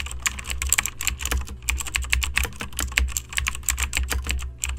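Fast typing on a keyboard: a quick, uneven run of key clicks with a short pause near the end, over a low steady hum.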